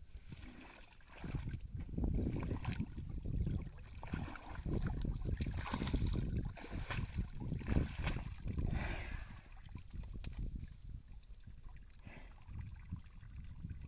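Water buffalo sloshing and splashing in muddy water as it heaves itself up to stand, the water noise heaviest in the middle and easing off near the end.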